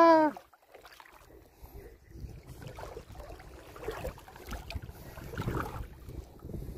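Small sea waves lapping and sloshing at the shoreline, uneven, with a few swells.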